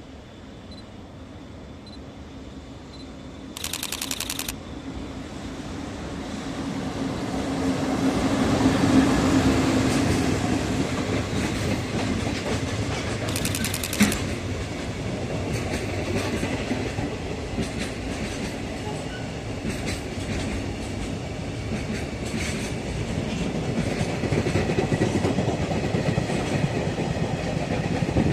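EF65 electric locomotive approaching and passing with a steady hum, loudest about nine seconds in. Its string of container flatcars follows, rumbling with clickety-clack over the rail joints. Two short rasping bursts come about ten seconds apart, the second with a sharp click.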